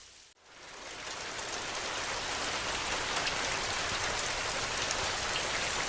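Steady rain falling, a dense even hiss with scattered individual drops. It drops away almost to nothing just after the start, then swells back to full within about a second.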